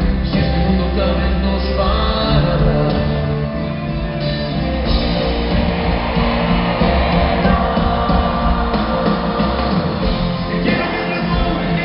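Live pop-rock band with a male lead singer performing, heard from the audience in a large arena with its echo.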